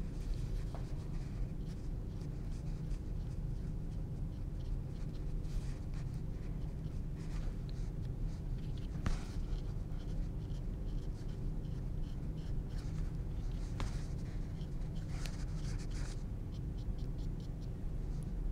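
Small paintbrush stroking and dabbing acrylic paint onto a canvas panel: faint, scratchy strokes that come and go, heard over a steady low hum.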